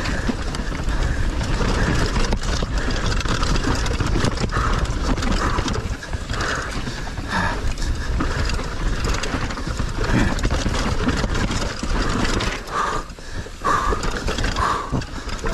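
Action-camera audio of a Dartmoor Hornet hardtail mountain bike riding down a dirt trail. Wind rushes steadily on the microphone, the tyres run over dirt, and the chain and frame rattle and knock constantly over the bumps.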